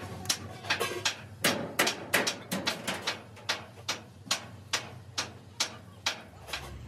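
Sharp metallic knocks and clicks from a steel wrench working the wheel nuts on a truck's wheel hub, irregular at first, then settling into an even beat of about two to three a second.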